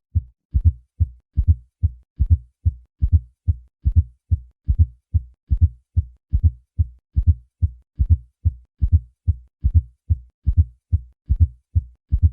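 Heart sounds heard through a stethoscope: a steady run of low thuds at roughly 70 beats a minute. Each beat falls in threes, with a soft fourth heart sound (S4) just before the first heart sound and then the second heart sound, the 'Tennessee' gallop. That cadence is a sign of a stiff ventricle with abnormal compliance.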